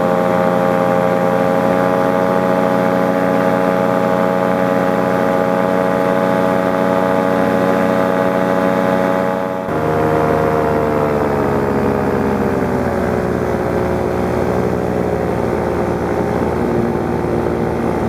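Paramotor engine and propeller running steadily in flight. About ten seconds in the sound changes abruptly, then the engine's pitch slowly falls over several seconds.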